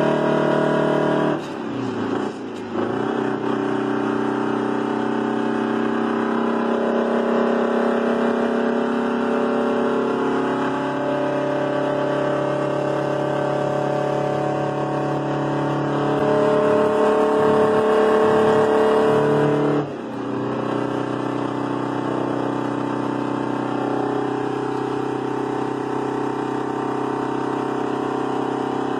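Straight-piped 8V71 Detroit Diesel two-stroke V8 in a 1980 GMC General semi truck, pulling under load with its pitch climbing slowly. The sound drops out briefly twice, about a second and a half in and about twenty seconds in, and comes back lower each time: upshifts through the Roadranger gearbox.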